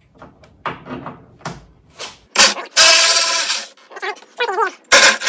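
A socket being fitted with a few light clicks, then a cordless power tool running in two bursts of about a second each as it unscrews the nut holding the power liftgate strut bracket.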